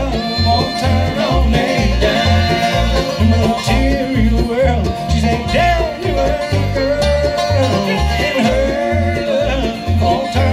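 Bluegrass band playing an instrumental passage, with banjo and guitar over a steady upright-style bass line that alternates between two low notes about twice a second.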